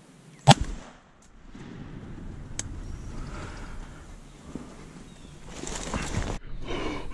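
A single shotgun blast about half a second in, fired at a wild turkey tom, followed by a few seconds of lower rustling noise.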